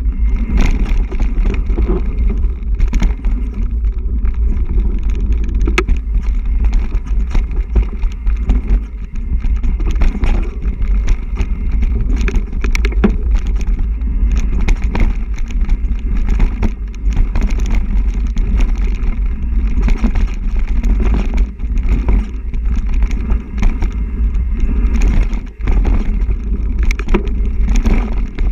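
Mountain bike riding fast over a dirt trail, its frame and parts rattling and clicking over roots and rocks, under a steady low rumble of wind buffeting the microphone.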